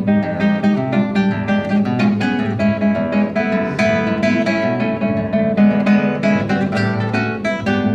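Acoustic guitar playing an instrumental piece: quick plucked notes over a moving bass line.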